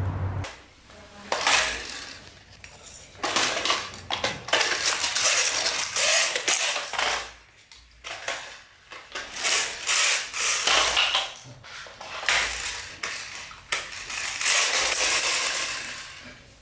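Small plastic toys, a toy car among them, rattling and clattering on a wooden parquet floor in irregular bursts.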